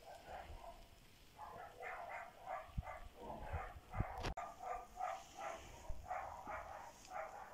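An animal calling over and over in quick succession, about three or four short calls a second, starting about a second and a half in.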